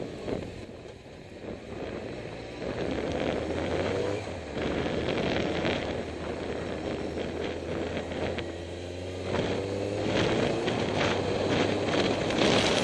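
Motorcycle engine and wind rush heard from the rider's camera while riding. The engine note climbs as it accelerates about three-quarters of the way through and again near the end.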